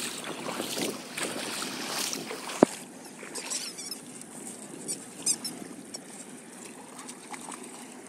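A dog's rubber squeaky toy squeaking briefly a few times over a steady wash of wind and lapping river water, with one sharp knock about two and a half seconds in.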